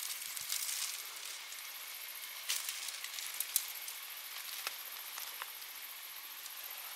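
Pruning shears snipping a watermelon vine stem, then faint rustling of leaves and a cloth towel with a few small clicks. A steady faint high hiss sits underneath.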